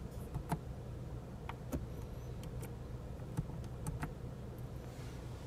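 Scattered light plastic clicks as fingers tap and press the overhead console's map-light lenses and buttons, over a steady low hum of the car cabin.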